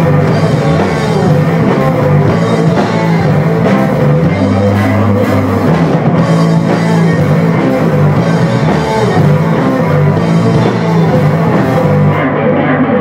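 Live funk-rock band playing without vocals: electric guitar, electric bass and drum kit, with a steady driving bass line. Near the end the drums' high crash drops out while the guitar and bass carry on.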